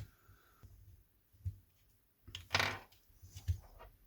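Handling noises from an opened PlayStation 5 DualSense controller's plastic parts: a click at the start, a few soft knocks, and a longer rub a little past halfway.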